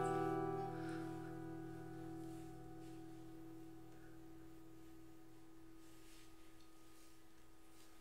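Steel-string acoustic guitar's last chord ringing on and slowly fading out at the end of the song.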